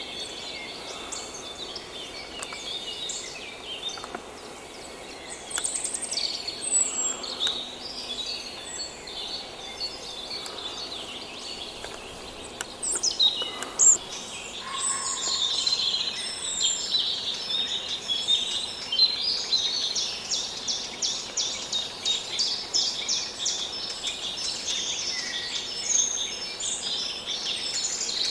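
Several songbirds chirping and singing over a steady background hiss of forest ambience. The calls grow busier from about halfway, with quick runs of short, high repeated chirps.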